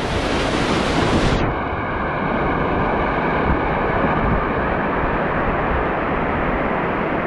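Loud, steady rush of river water with wind buffeting the microphone, a dense rumbling noise; about a second and a half in, the high hiss drops away abruptly and the rumble continues.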